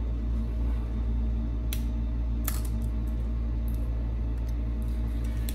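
A steady low hum with a few light clicks and taps from a phone being handled and set down on a silicone repair mat, one at about two seconds in and one at about two and a half seconds.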